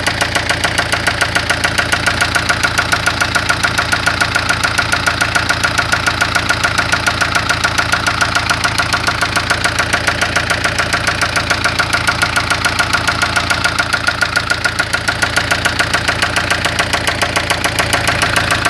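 1996 Ford Fiesta engine idling steadily with a loud, evenly repeating knock or tap several times a second: the abnormal engine noise the owner is complaining of.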